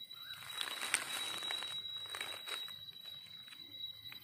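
Fingers scratching and digging into dry, gravelly forest soil: a gritty crackling scrape that swells about half a second in and dies away a couple of seconds later.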